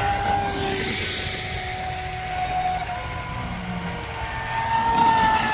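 Radio-controlled electric speedboats running fast on the water: a high motor whine from more than one boat, its pitch sliding down and then climbing again, loudest about five seconds in, over the hiss of spray.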